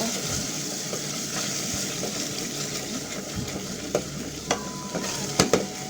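Thick tomato and spice curry paste sizzling in a pan while it is stirred, with a few sharp clicks of the stirring utensil against the pan in the second half.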